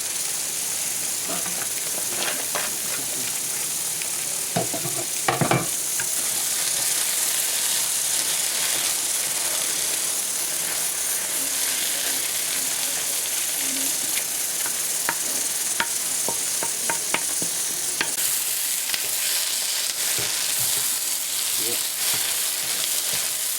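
Lamb brain masala sizzling as it fries in a pan, a steady high hiss with occasional scrapes and clicks of stirring.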